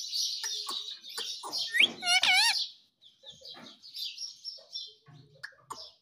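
Indian ringneck parrot calling and chattering in rapid high-pitched notes, loudest about two seconds in with a rising whistle and a wavering whistled note. After that come softer chatter and a few short clicks near the end.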